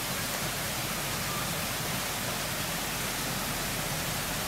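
Flowing river water rushing: a steady, even hiss with no breaks.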